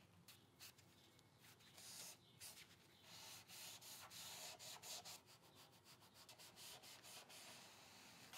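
Faint rubbing swishes of a foam brush wiping wood stain along a wooden table edge, a run of short strokes, strongest in the middle.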